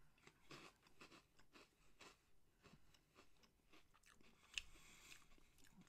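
A person chewing puffed burdock-root rice crackers: faint, regular soft crunches, about three a second, with one sharper click about four and a half seconds in.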